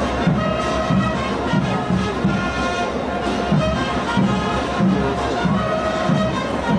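Street brass band with bass drums and cymbals playing a llamerada dance tune, with a steady beat under held brass notes.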